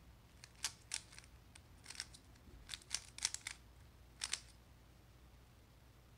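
Stickerless plastic 3x3 speedcube being turned by hand: a run of quick, sharp plastic clicks as its layers are turned, in small groups, stopping about four and a half seconds in.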